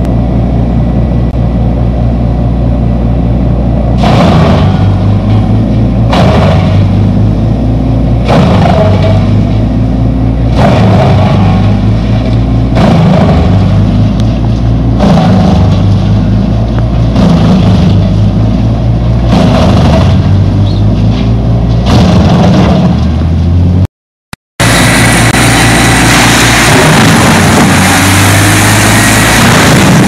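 Large truck-mounted wood chipper running under heavy load as a whole tree trunk is chipped. About every two seconds there is a loud crunching bite, and the engine note dips and recovers. After a brief dropout near the end, a CBI ChipMax tracked chipper runs steadily.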